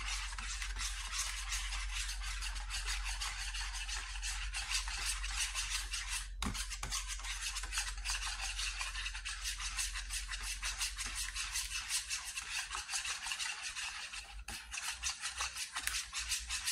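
A whisk beating an egg, hot sauce and mustard wash in a plastic bowl: quick, steady scraping strokes that break off briefly about six seconds in and again near fourteen seconds.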